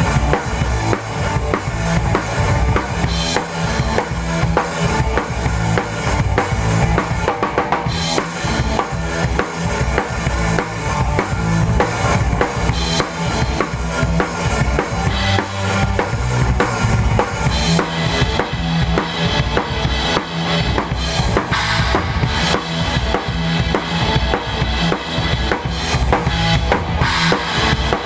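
Live rock band playing, with the drum kit loud and close, heard from beside the kit: a steady driving beat of kick and snare over the rest of the band.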